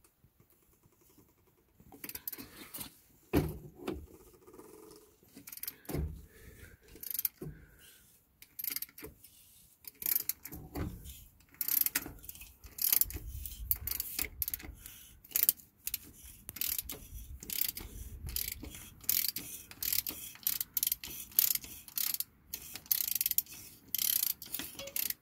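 3/8-inch drive ratchet clicking as it turns a cap-style wrench to unscrew the pre-loosened plastic oil filter housing of a Toyota Tundra 5.7L. After about two quiet seconds come irregular metal clicks and rattles, growing quicker and denser about halfway through.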